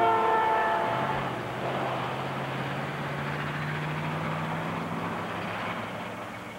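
Highway traffic passing: one vehicle's engine drops in pitch as it goes by in the first second, then a steady engine drone and tyre noise gradually get quieter.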